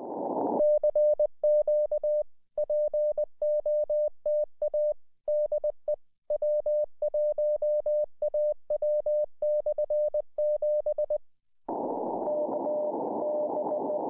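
Morse code (CW) on amateur radio: a steady single-pitch tone keyed on and off in crisp dots and dashes by the CWvox voice-operated keyer, with clean keying. Radio hiss fills the start and returns near the end, carrying a faint second Morse signal.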